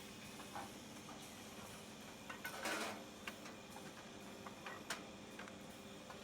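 Automatic two-head woodworking drilling machine: a steady motor hum, with a short noisy burst about two and a half seconds in and a few sharp clicks after it.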